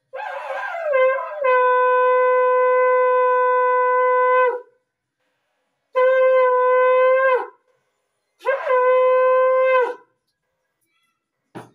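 Conch shell (shankh) blown three times at a puja: one long blast of about four and a half seconds, then two shorter ones. Each holds one steady pitch after a rough, wavering start and sags in pitch as the breath runs out.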